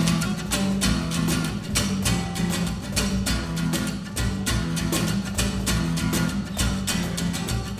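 Acoustic guitar strummed in a steady, even rhythm: an instrumental passage between sung lines of a song.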